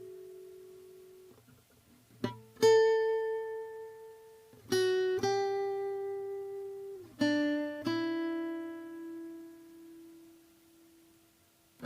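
A 1968 Yamaha S-70 acoustic guitar played slowly: single notes plucked in three pairs a couple of seconds apart, each left to ring and fade. The last notes die away to near quiet near the end.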